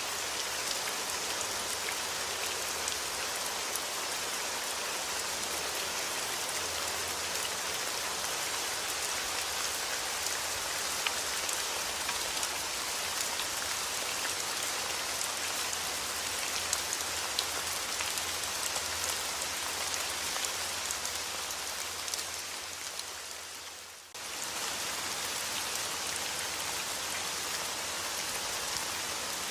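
Steady rain falling, a dense hiss with many small drops ticking through it. About three-quarters of the way in, the sound fades down over a couple of seconds and then snaps straight back in at full level.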